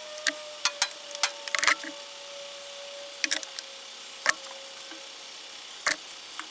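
Scuba regulator parts being handled on a workbench: about a dozen sharp clicks and clacks at irregular intervals, over a faint steady hum that sinks slightly in pitch.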